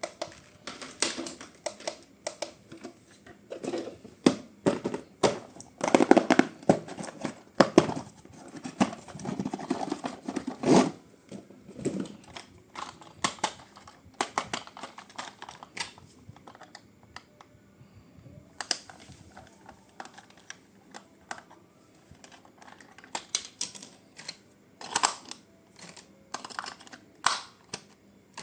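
Irregular plastic clicks, taps and rustling from hands handling a remote-control toy and its packaging. The clicks come thickly for several seconds, then thin out to scattered taps.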